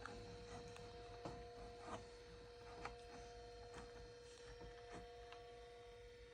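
Faint, steady hum from an Apple PowerBook 140 just powered on, its old hard drive spinning. A few soft, irregular ticks of the drive working sit over the hum.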